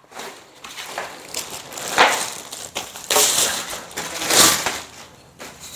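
Packing wrap being stripped off metal bed-frame parts and crushed, crackling in several uneven swells, the loudest about two, three and four and a half seconds in.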